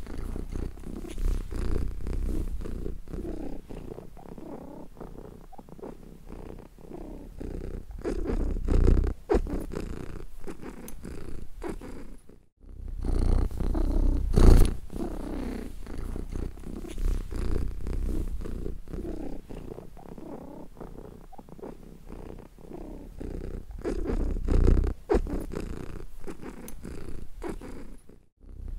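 Domestic cat purring, a low rumble rising and falling in loudness every second or two. It breaks off briefly about twelve seconds in and again near the end.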